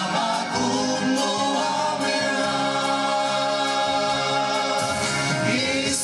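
Mixed group of men and women singing a Christian hymn together into handheld microphones, in sustained notes.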